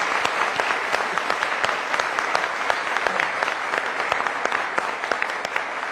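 Studio audience applauding: many hands clapping steadily, easing off slightly near the end.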